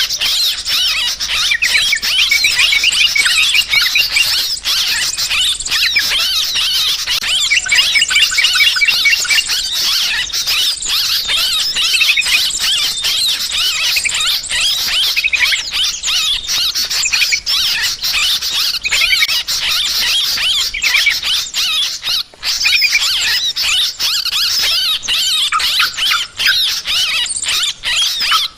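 A flock of yellow-vented bulbuls chattering noisily and without a break, many high calls overlapping into a dense mass: the agitated 'ribut' calling used as a lure.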